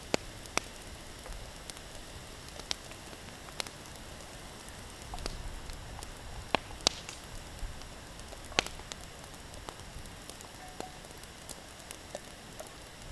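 Cooking fire crackling: irregular sharp pops over a steady hiss. A few light clinks come from a wooden utensil working in a stainless steel bowl.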